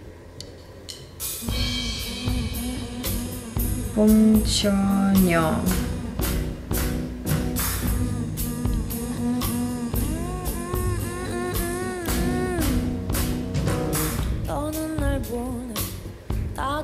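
Live band music with a drum kit, starting about a second in, and a woman singing over it.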